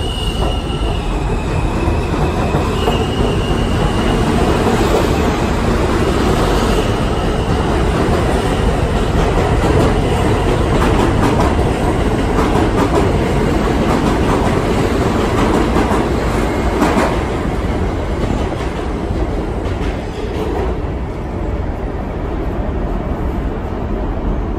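R160 subway train pulling out of the station. Its traction motors give a whine that rises in steps as it starts to move, then the cars rumble and clatter past on the rails. The noise fades over the last third as the train goes off into the tunnel.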